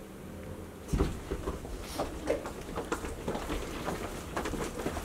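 Low hallway room tone, then from about a second in a run of irregular footsteps and small knocks on a hard floor.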